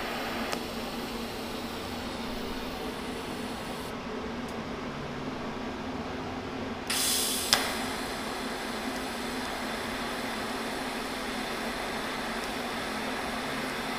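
TIG welding arc on bare sheet steel, hissing steadily over a low hum. The arc goes out about 4 s in and strikes again about 7 s in with a brief loud crackle and a sharp click.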